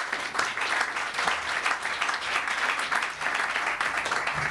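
Audience applauding steadily, dense many-handed clapping.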